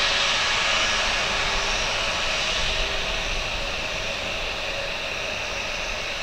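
Airbus A320's IAE V2500 jet engines running as the airliner rolls along the runway: a steady hiss with a faint hum underneath, slowly getting quieter.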